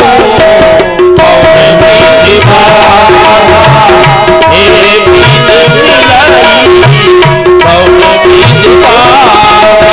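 Harmonium and tabla playing an instrumental passage. The harmonium holds long steady notes over a regular tabla rhythm with repeated deep bass strokes.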